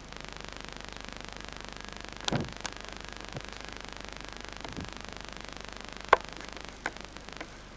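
Steady hiss and hum from the audio track of a Bauer VTR 1004 open-reel video recorder on playback of an uncleaned tape, broken by a few sharp clicks, the loudest about six seconds in.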